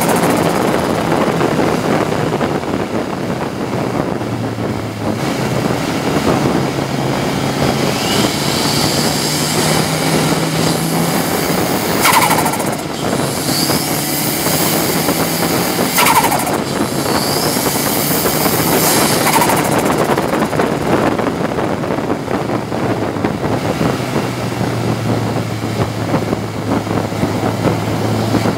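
Ford Sierra RS Cosworth's turbocharged four-cylinder race engine running hard, heard from inside the stripped-out cabin over road and wind noise. The engine note rises and falls with the throttle, with two sharp sweeps in pitch near the middle.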